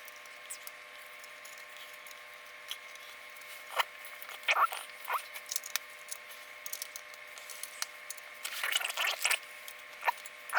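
Small plastic building bricks being handled: scattered light clicks and scratchy rustles as pieces are picked through and pressed together, in two short clusters partway in and near the end.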